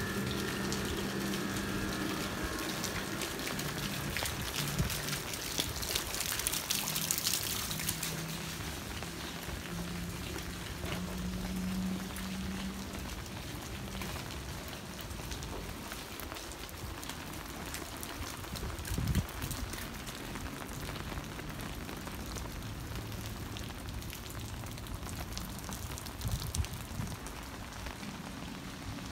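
Steady rain falling on wet pavement and surrounding surfaces, as a continuous hiss dotted with many small drop impacts. A low steady hum sits underneath for the first half and fades out about halfway.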